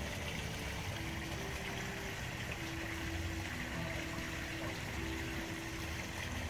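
Steady trickling, running water of a koi pond, with a faint low melody of held notes over it.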